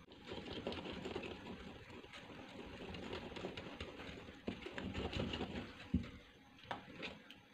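Wire whisk beating cake batter in a glass bowl: a faint, continuous rapid scraping and sloshing, with a few light clicks of the wires against the glass.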